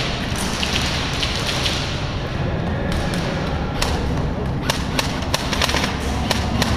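Thumps and a steady rumble from an action camera's microphone as an airsoft player moves. From about four seconds in comes a quick series of sharp snaps, typical of airsoft guns firing.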